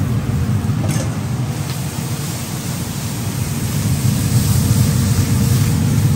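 Food sizzling in a wok over a high-flame stove with a steady low roar, while a metal ladle stirs it, clinking against the wok about a second in. The sizzle swells louder about four seconds in.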